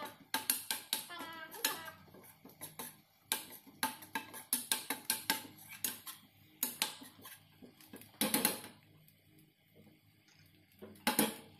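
A metal spoon scraping and clinking against a stainless steel wok as garlic and ginger are stirred, in a rapid run of clicks and scrapes.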